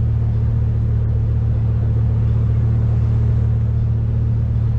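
Lamborghini Huracán's V10 engine idling steadily, a deep even note with no revving.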